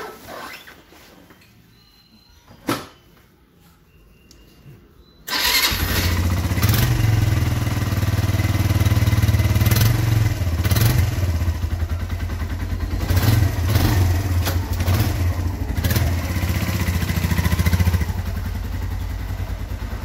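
Suzuki GS125 motorcycle's single-cylinder four-stroke engine starting abruptly about five seconds in, after a few faint clicks and a sharp knock. It then runs with the revs rising and falling several times, easing back a little near the end.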